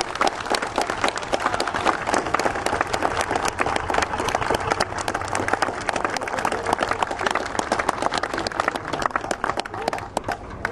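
Crowd applauding, the clapping dying away near the end.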